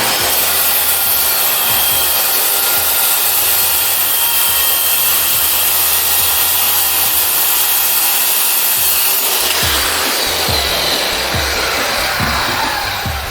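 Circular saw cutting through plywood: a loud steady cutting noise for about nine seconds, then the blade spins down with a falling whine near the end.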